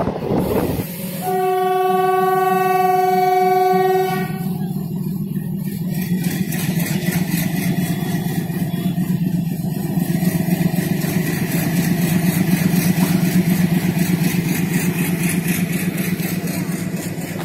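A train horn sounds one steady blast of about three seconds, starting about a second in. The train's steady low rumble follows and goes on after the horn stops.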